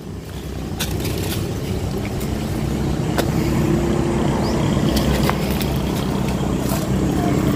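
A motor vehicle's engine running steadily on a nearby road, growing gradually louder, with a few faint clicks over it.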